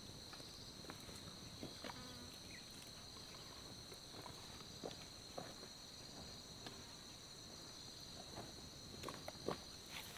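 Insects droning steadily at an even high pitch, with a few faint light knocks and rustles scattered through.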